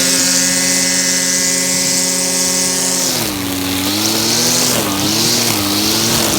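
Bush Ranger BC30 two-stroke brush cutter running at full throttle with a steady high note. About three seconds in the revs drop, then rise and fall repeatedly as it works through brush.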